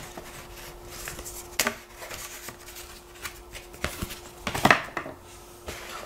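Light handling sounds: a paper booklet being moved and a few clicks and knocks as a pocket knife is lifted out of its moulded tray, the loudest knock a little before the end. A faint steady hum runs underneath.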